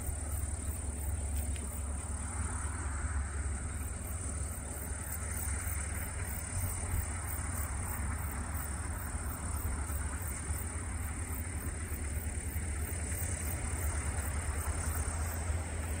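Kubota combine harvester running steadily while cutting rice: a constant low engine drone with an even hiss of machinery above it.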